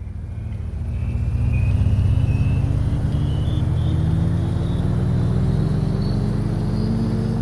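A vehicle engine running with its pitch rising slowly and steadily, as in acceleration, swelling in loudness over the first couple of seconds.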